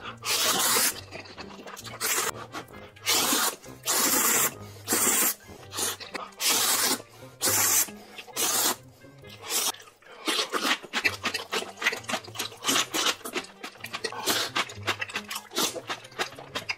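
A man slurping spicy ramen noodles, sucking them in off the chopsticks in loud, wet pulls. For the first ten seconds the slurps come about one a second, each under a second long; after that they turn into quick, short sucks in fast succession.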